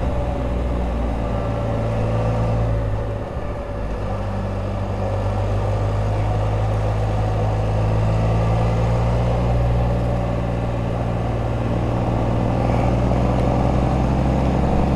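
Can-Am Spyder RT three-wheeled motorcycle riding along at a steady cruise, its engine note heard from the rider's seat. The note sags briefly about three seconds in, then builds slowly again.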